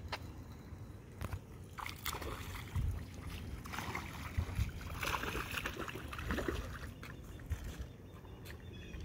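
A small hooked fish splashing and thrashing at the water's surface as it is reeled in, in irregular bursts that are busiest from about two to six and a half seconds in.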